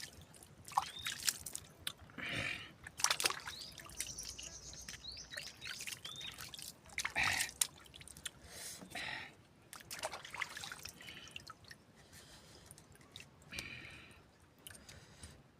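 Wet mouth sounds of eating clams: slurps and sucks as the meat is drawn from the shells, with sharp clicks and taps scattered throughout.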